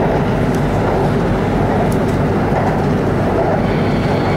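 Inside a BTS Skytrain car moving along the elevated line: the steady rumble of the electric train running, with a couple of faint high ticks.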